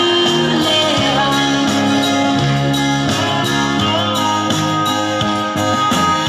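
A woman singing into a microphone, amplified through a PA loudspeaker, over a steady instrumental backing with guitar.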